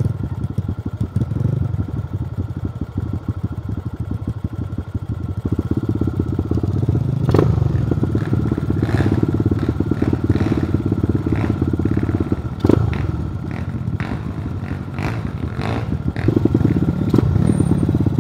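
Trail motorcycle engine running while ridden along a rough trail, its revs swelling and easing. Two sharp knocks, about seven seconds in and again near thirteen seconds, as the bike jolts.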